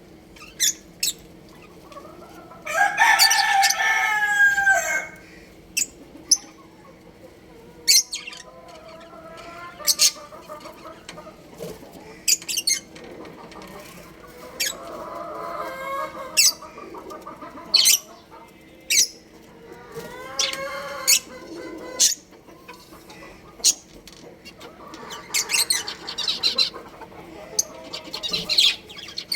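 Budgerigars chirping in short, sharp, high notes throughout. A rooster crows loudly about three seconds in, a call of about two seconds that drops at the end, and chickens cluck more softly at times.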